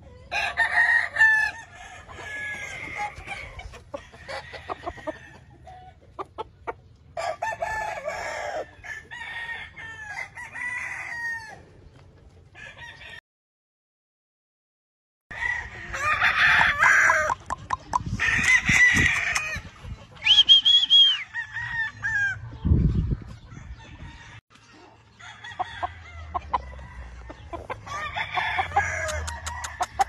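Gamefowl roosters crowing several times, one drawn-out call after another, with clucking from other chickens in between. The sound drops out completely for about two seconds midway.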